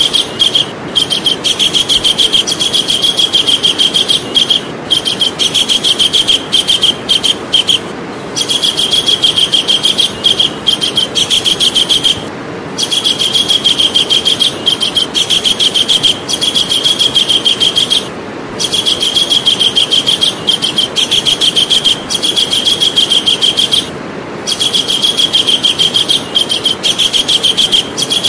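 Javan kingfisher giving its loud, rapid chattering call: fast runs of repeated high notes in bouts of a few seconds, broken by short pauses, over a steady background hiss.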